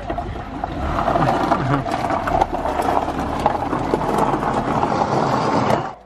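A small SUV moving slowly across a gravel yard: a steady crunching of tyres on loose stones over a low engine hum, ending abruptly.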